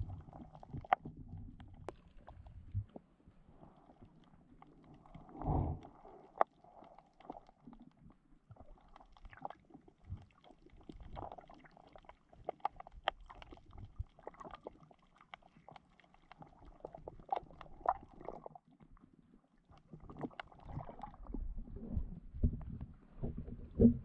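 Underwater sound picked up by a GoPro Hero 7 below the surface: muffled gurgling water with scattered sharp clicks and low rumbling surges. One surge comes about five and a half seconds in, and several come near the end.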